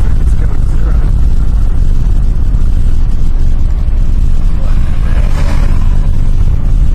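Steady in-cabin road noise of a 1986 Honda Prelude driving at speed: a continuous low rumble of engine, tyres and wind, with the car running well.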